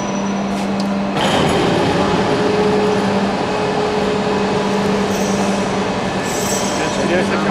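CNC pipe-cutting machine's plasma torch striking its arc about a second in and then cutting steadily: a harsh, even hiss over the machine's steady hum.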